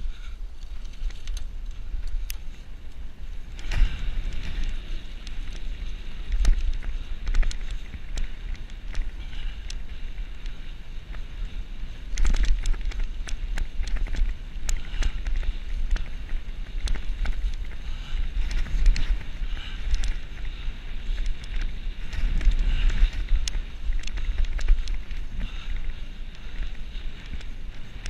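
Wind buffeting the microphone of a camera on a mountain bike ridden fast, over the rumble and rattle of the bike running on a bumpy dirt trail, with scattered knocks throughout.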